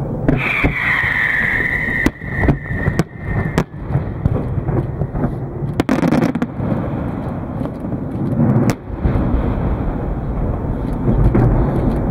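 Fireworks display: aerial shells bursting with sharp bangs and cracks over a steady low rumble. A long high whistle slowly falls in pitch during the first few seconds.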